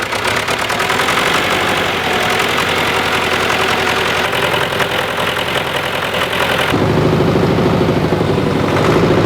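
An old farm tractor's engine running steadily just after being started on its first run with a replacement oil pump. About seven seconds in, its note deepens and gets a little louder.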